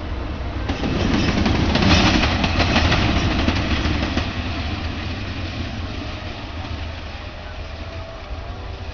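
A CC 203 diesel-electric locomotive running light passes close by. Its engine rumble swells as it nears, with quick wheel clicks over rail joints and points about two to four seconds in, then fades as it draws away.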